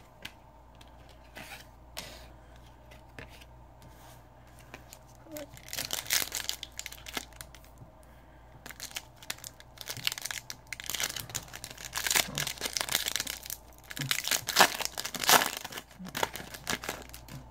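A trading-card pack's wrapper being torn open and crinkled, in repeated bursts that start about a third of the way in and are loudest near the end.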